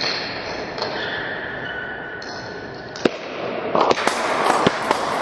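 A table tennis ball ticking sharply several times in the last two seconds, as it bounces on the table, a bat or the floor between points, over a steady hall hum.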